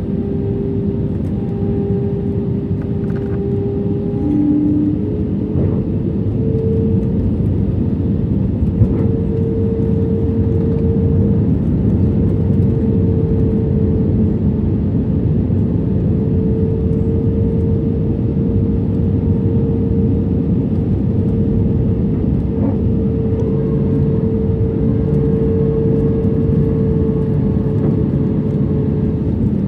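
Airbus A320 cabin noise heard from a seat over the wing on the descent: a steady rush of airflow and engine drone, with a held engine tone that rises slightly in pitch about five seconds in.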